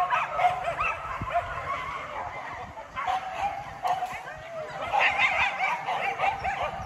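A pack of hunting dogs yelping and baying together, many short high-pitched yips overlapping continuously, growing louder about five seconds in.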